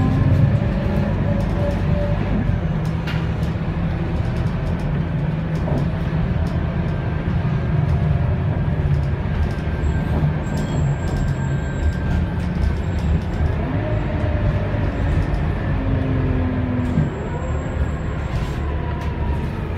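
Scania K280UB city bus under way, heard from inside the cabin: the 9.3-litre five-cylinder DC9 diesel running with a steady low drone, and a whine from the ZF Ecomat six-speed automatic driveline that rises and falls in pitch. About 17 seconds in the sound eases off.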